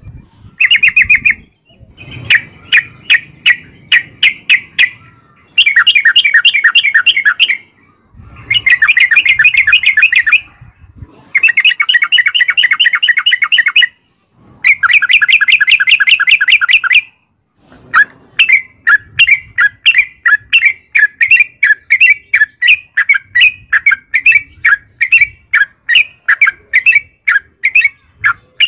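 Yellow-vented bulbul (trucukan) calling in long, rapid rolled chatters. It gives several dense bursts of a few seconds each with short pauses between them. From about two-thirds of the way in, it switches to a steady run of quick, separate notes.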